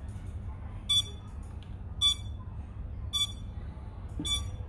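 A short, high electronic beep repeating evenly about once a second, four times, over a steady low hum.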